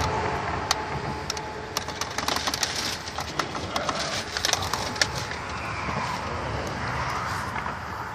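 Steady car and road noise with many small sharp clicks and taps scattered through it, thinning out after about five seconds.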